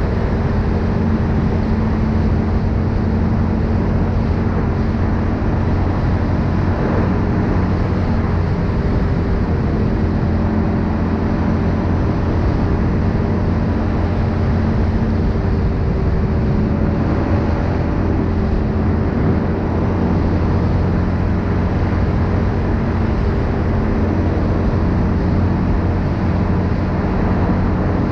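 Linhai 500 ATV's single-cylinder four-stroke engine running at a steady cruising speed on the road, its note holding nearly level, under a steady rush of wind and road noise.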